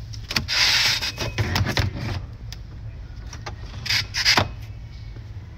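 Handling noise from the rear cargo area of a Mercedes-Benz GLB: a long stretch of rustling and scraping near the start, then two short sharp scrapes about four seconds in as the retractable cargo cover is pulled by its handle, with scattered clicks over a steady low hum.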